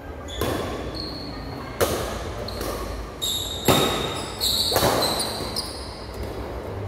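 Badminton doubles rally: rackets striking the shuttlecock in sharp cracks, four loud hits about a second apart with a few lighter ones between, echoing off the hall. Short high squeaks of shoes on the tiled floor come in between the hits.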